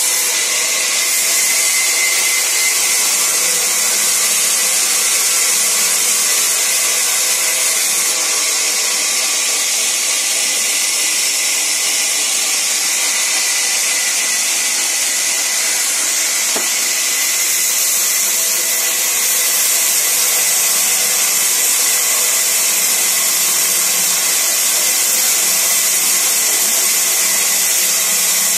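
Large sawmill band saw running steadily while ripping timber into thin planks: a continuous high hiss with a thin steady whine, the level swelling slightly at times as the wood is fed through.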